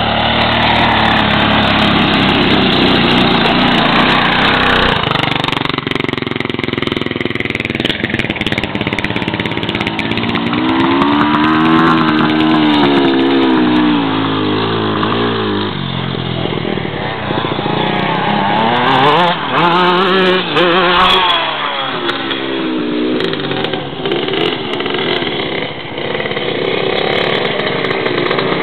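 Quad bike (ATV) engines running and revving, their pitch rising and falling in long sweeps as a quad rides close by.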